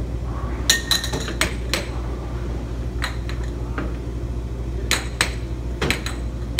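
Air hockey being played: plastic mallets striking the puck and the puck clacking off the table's rails, sharp irregular clacks in quick bunches over a steady low hum.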